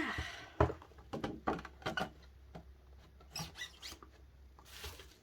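Hands handling DVD box packaging: scattered sharp clicks and taps of plastic and card, with a short rustle at the start and another near the end.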